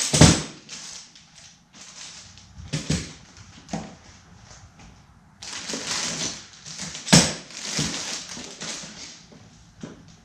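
Plastic packaging bags crinkling and rustling as bagged light stands and umbrellas are handled and pulled from a cardboard box, with two sharp knocks, one at the start and one about seven seconds in.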